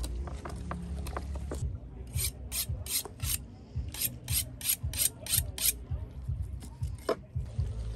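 Kitchen knife being sharpened against the blade of a second knife: two quick runs of metal-on-metal scraping strokes, about three a second, starting about two seconds in, with a single knock near the end.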